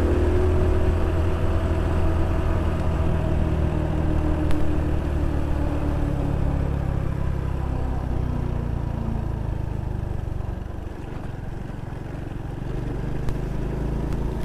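Small motorcycle engine running on the move, its pitch falling slowly as the bike eases off. It goes quieter about eleven seconds in and picks up again near the end.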